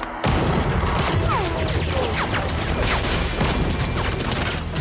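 Rapid gunfire from several guns with glass smashing, a dense action-film sound mix. It cuts in abruptly just after a brief drop at the start.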